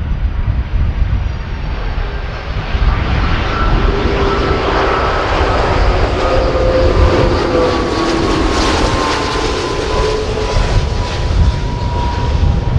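Airbus A330-300 jet airliner with Rolls-Royce Trent 700 turbofans passing low overhead on landing approach: a steady jet roar that swells as the plane comes over and passes, with engine whine tones falling slowly in pitch as it goes by.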